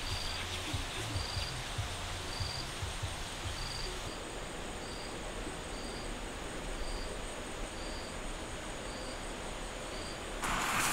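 An insect chirping, one short high note repeating evenly about every two-thirds of a second, over steady outdoor background hiss.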